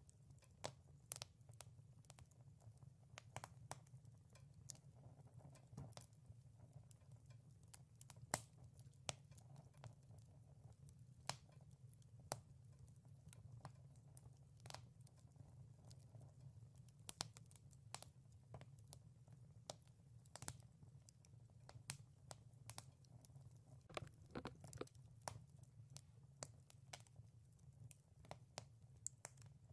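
Wood fire crackling: irregular sharp pops and snaps, often several a second, over a low steady hum.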